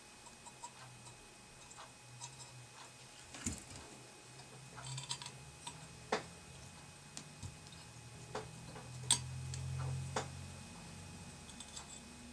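Scattered light clicks and taps of small metal parts being handled: a metal carburetor float being taken out of an alligator clip and turned in the fingers, the soldering iron's tip knocking against it now and then.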